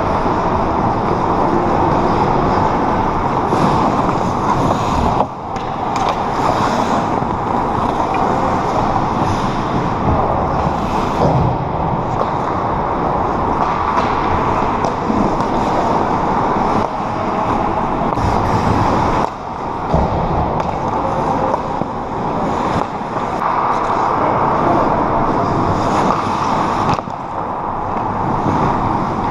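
Pickup ice hockey play: skates scraping and carving the ice, with occasional knocks of sticks and puck, over a steady, loud rink noise.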